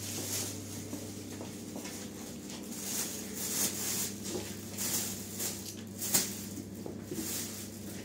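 Thin plastic bag rustling and crinkling again and again as onions are picked from a box and dropped into it, over a steady low hum.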